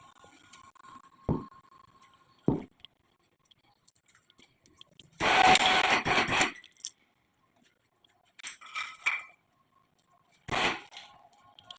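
Steel tools and parts clanking and scraping: two sharp knocks, then a louder scraping clatter lasting about a second, a short rattle, and another knock near the end.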